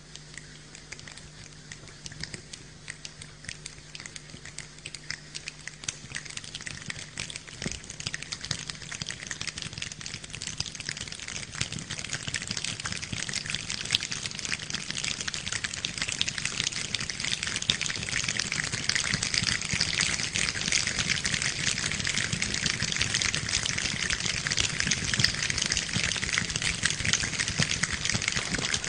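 Human imitation of rain: a dense patter of many small taps and clicks that starts sparse and faint and thickens and grows steadily louder, like rain getting heavier.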